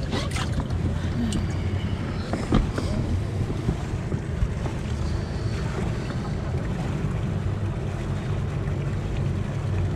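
Wind buffeting the microphone as a steady low rumble, with a couple of brief crinkles from the clear plastic mesh weigh bag being held open.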